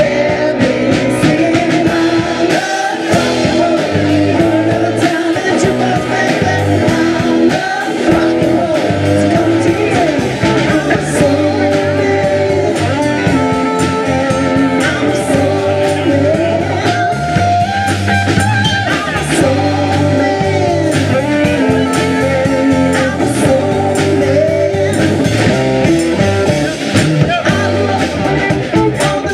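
Live rock band: a woman singing lead over electric guitar, bass guitar and a drum kit, playing a song steadily throughout.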